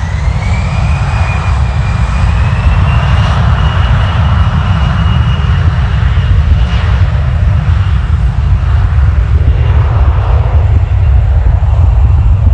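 Aircraft engines spooling up: a whine that rises in pitch over the first second or so, then holds steady, over a loud low rumble that grows a little louder.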